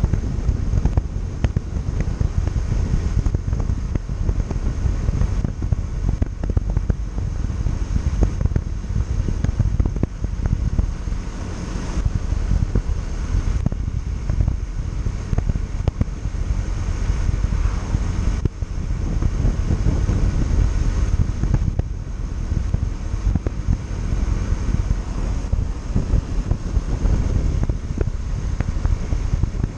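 Wind buffeting the microphone of a moving Yamaha Factor 150 motorcycle, a steady rushing rumble over the bike's engine and road noise.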